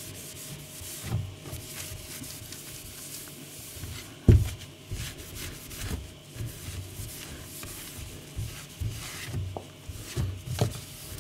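Damp microfiber cloth rubbing along the frame of a painted cabinet door, with a few soft thumps and one sharp knock about four seconds in.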